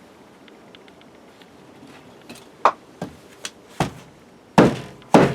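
Scattered light taps and clicks, then two heavy wooden knocks near the end as split firewood shifts and tumbles from a stacked wood pile.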